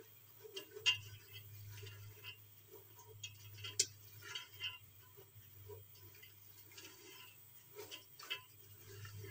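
A spoon stirring soaked black chickpeas in masala in an aluminium pressure cooker: scattered scrapes and light knocks against the pot. The loudest knocks come about a second in and just before four seconds, over a faint steady low hum.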